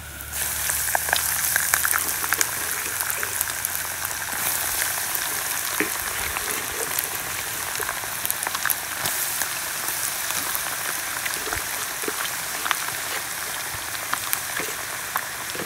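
Fish pieces dropped into a pot of hot oil start deep-frying: a sudden burst of dense sizzling with crackling pops, loudest in the first couple of seconds, then settling into a steady sizzle.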